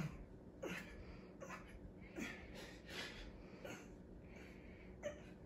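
A man breathing hard through a set of push-ups: short, forceful breaths and grunts roughly every three-quarters of a second, the sound of straining exertion.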